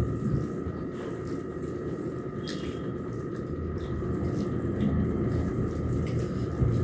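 Soft, wet squishing with faint clicks as fingers mash and mix soft boiled rice (phena bhat) and egg on plastic plates, over a steady low room hum.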